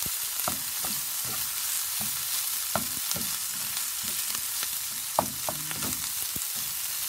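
Rice, diced bacon and onion sizzling in a nonstick frying pan while a spatula stirs and turns them, scraping and tapping on the pan, with two sharper knocks near the middle. The rice is being stir-fried into fried rice.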